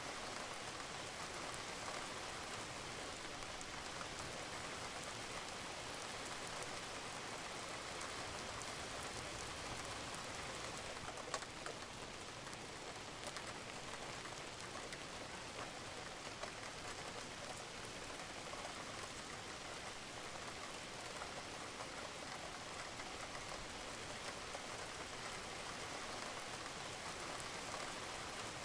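Steady rain falling on a roof, with scattered drops ticking and one louder drip about eleven seconds in.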